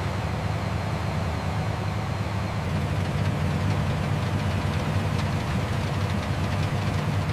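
Steady low mechanical rumble of a heavy engine or machine running without change.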